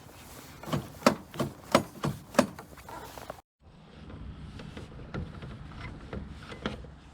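About six sharp knocks of tools on metal in quick succession, a few tenths of a second apart, then quieter handling noise with a few light clicks.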